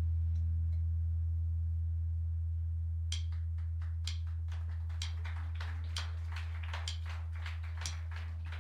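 A single low amplified note left ringing and slowly fading in a pause in a live band's playing. About three seconds in, light sharp taps begin, roughly one a second at first and then quicker.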